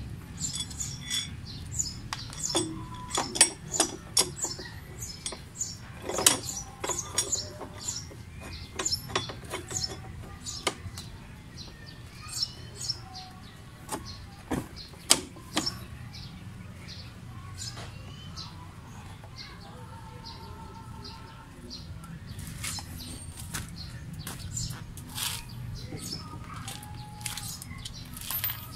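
Irregular metal clinks and taps as the hooks and threaded rod of a coil spring compressor are set against the coils of a Mitsubishi Lancer rear strut's spring, thickest in the first half and thinning out later, over a steady low hum.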